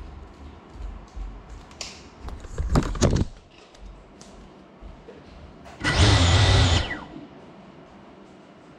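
GEPRC Cinelog35 cinewhoop's brushless motors and propellers spinning up in short bursts while the crashed drone lies on the floor. There is a brief burst about three seconds in and a louder burst lasting about a second near the six-second mark.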